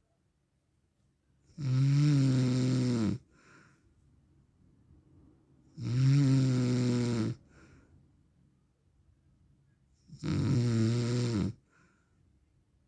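A man snoring in his sleep: three long, loud snores about four seconds apart, each lasting about a second and a half with a steady droning pitch, and near quiet between them.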